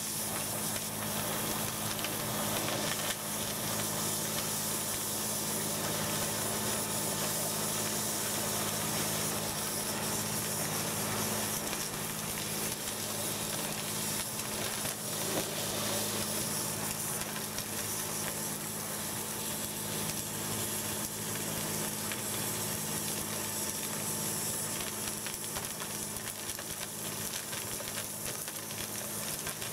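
Warthog hydrojetting nozzle blasting water at about 4,000 PSI through a 4-inch acrylic pipe packed with debris, making a steady hiss as it cuts through the blockage and scours the pipe walls. A steady low hum from the jetting machine runs underneath.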